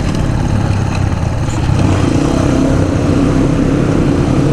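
Motorcycle engine running steadily while riding, a low hum that grows a little louder about two seconds in.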